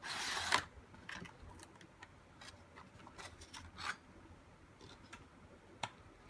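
Handling noises: a brief rustle right at the start, then scattered light clicks and taps.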